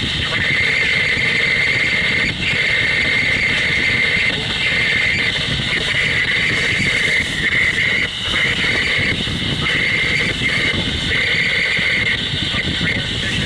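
Freight cars rolling past with wheel squeal: a high screech from the wheels against the rails that comes and goes every second or so, over a low rumble of the train.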